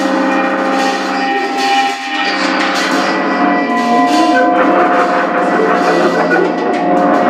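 A small band playing live, with electric guitar and keyboard holding sustained, ringing chords that change every second or two.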